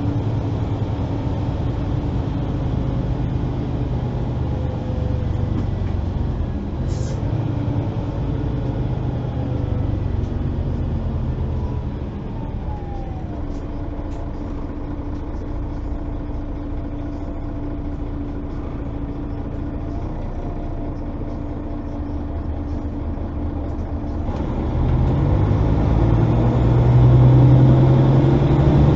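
Mercedes-Benz Citaro articulated bus's diesel engine heard from inside the bus, running steadily at low revs and a little quieter through the middle. Near the end the engine note rises and grows louder as the bus accelerates.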